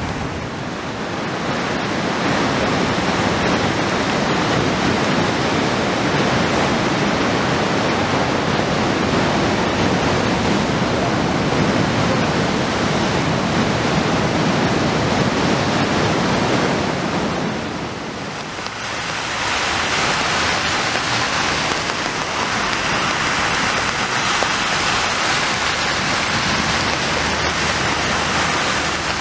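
Steady rushing storm noise of wind and water, strongest low down, for about the first eighteen seconds. Then, after a short dip, a higher hiss of rain and tyres splashing through a flooded street.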